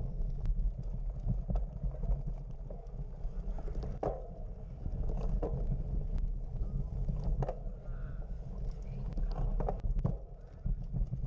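Outdoor ambience: wind rumbling on the microphone, with scattered clicks and knocks and faint distant voices.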